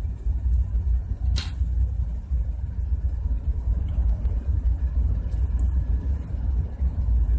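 A steady low rumble throughout, with a single sharp clink about one and a half seconds in as the small steel parts of a compressor suction valve are handled.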